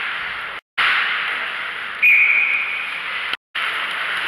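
Ice hockey rink ambience: a steady hiss of arena noise, cut off twice by brief dead silences where clips are spliced together. About two seconds in, a short steady high tone comes in over it and fades.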